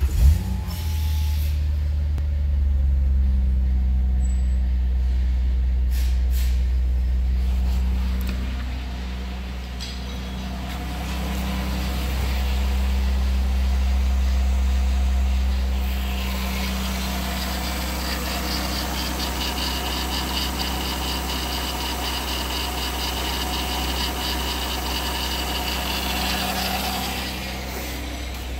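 Mercury Sable's 3.0-litre V6 idling steadily just after being started, settling out of its start-up surge in the first moment. From about halfway through, a high whine with rapid ticking runs alongside the idle.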